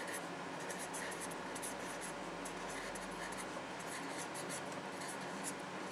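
Handwriting: a pen moving over a writing surface in quick, irregular scratchy strokes, over a faint steady hiss.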